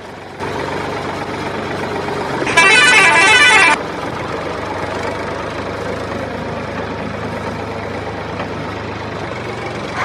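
Truck sound effect: a steady engine hum, with a vehicle horn blaring for about a second, about two and a half seconds in.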